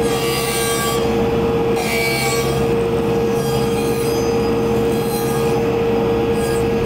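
Table saw running with an 8-inch dado blade, its flat-topped teeth cutting out the inside of a wooden bowl blank as the blank is turned by hand over the blade. A steady high whine, with scraping cutting noise that comes and goes as the wood turns.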